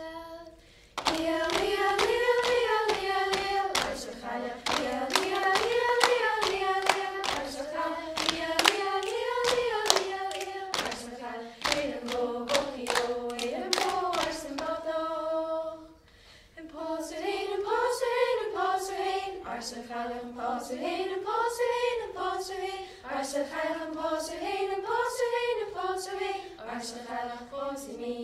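Group of young voices singing a Gaelic puirt-à-beul (mouth-music) reel in unison, keeping time with rhythmic hand clapping. The song breaks off briefly about halfway through, then starts again.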